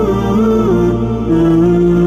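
Background music: a slow vocal melody with long held notes over a steady low drone.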